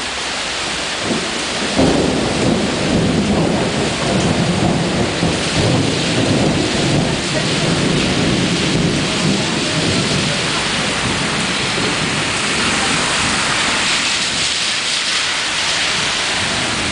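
Floodwater rushing along a street, a continuous wash of water noise, with cars driving through the water. It grows louder and deeper about two seconds in and stays so until about halfway, then settles to a steadier hiss.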